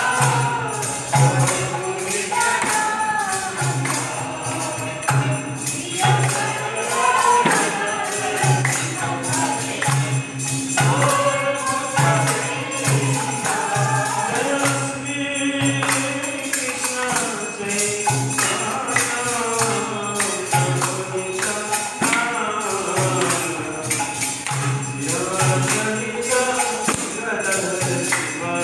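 Temple kirtan: a group singing a devotional chant together, with metal hand cymbals clashing in a steady, fast rhythm and a low regular beat under it, accompanying the arati.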